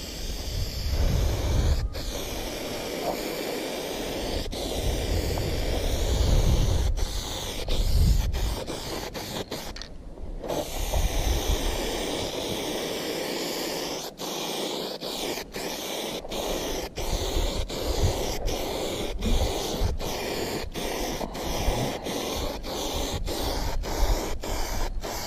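Aerosol can of 1K primer hissing in long sprays over bare steel, stopping briefly about ten seconds in. Low rumbling gusts of wind on the microphone come and go underneath it.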